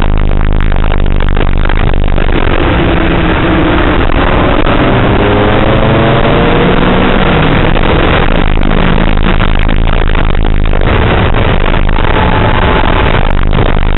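Car engine heard from inside the cabin under hard driving on a race circuit, loud and rough. About two seconds in its pitch climbs steadily for several seconds as the car accelerates, then holds roughly level.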